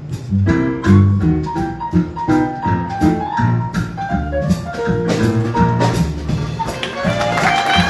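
High school jazz ensemble playing live: a steady beat of bass notes with piano chords and drum kit, and the horns coming in with brighter, higher held lines near the end.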